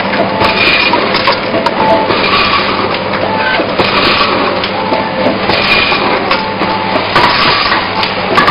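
Snack packing machine running, with fried beans rattling through its stainless feeder and hopper as a dense, continuous clatter of small clicks over a steady machine hum. Short steady tones recur now and then.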